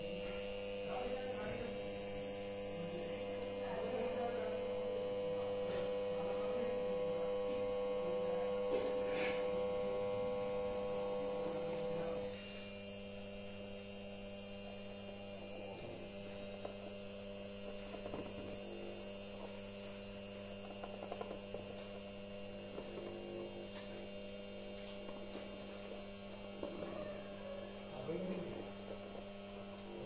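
Small battery-powered electric motor and fan of a homemade plastic-bottle vacuum cleaner running with a steady hum while it sucks up sawdust through its tube. About twelve seconds in, the higher tone drops out and the hum goes quieter.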